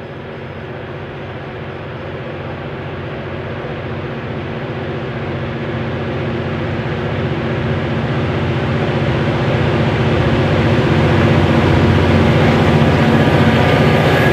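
Lashup of diesel-electric freight locomotives, among them the heritage C class C501 with its EMD V16 645E3 two-stroke diesel, working under load as they approach, the engine drone growing steadily louder.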